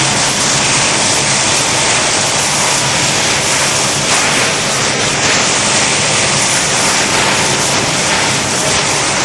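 Continuous loud noise of a running fried corn-chip production line: an even, unbroken rush over a low machine hum.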